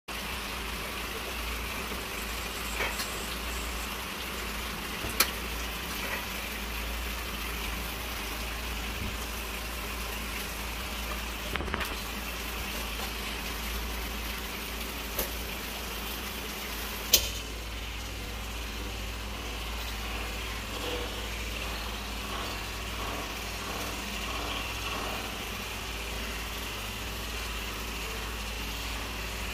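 Steady low hum and hiss of room noise, with a few sharp clicks and taps from hands filling and folding a bamboo-leaf rice dumpling; the loudest click comes just past the halfway point.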